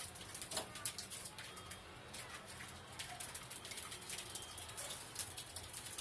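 Budgerigars chirping softly, with scattered small clicks from the flock pecking at a seed dish.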